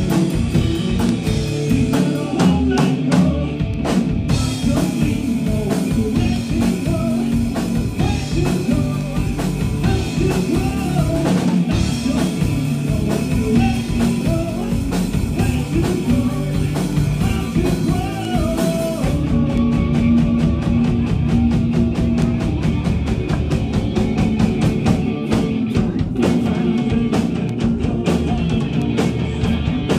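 Live rock band playing loudly: amplified electric guitars over a drum kit, with steady drum beats.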